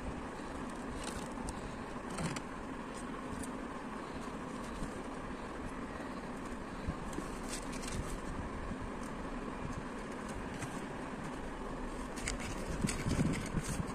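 A steady background hum, with a few light rustles and taps as fried snacks are lifted out of a cardboard takeaway box, the handling busiest near the end.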